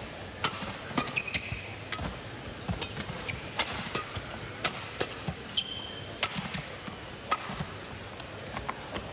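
Badminton rally: a quick, irregular exchange of sharp racket strikes on the shuttlecock, mixed with the players' footfalls and a few short squeaks of shoes on the court mat.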